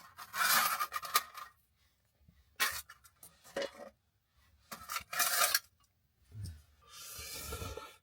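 Clinking and scraping of a small folding camp table being opened and metal camp cookware being handled, in several short bouts with quiet gaps between, the longest near the end.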